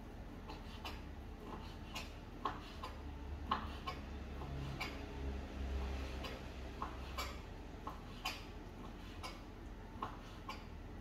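A kitchen knife clicking against the cutting surface as a vegetable is sliced by hand: irregular sharp clicks, about one or two a second. A low rumble swells in the background in the middle.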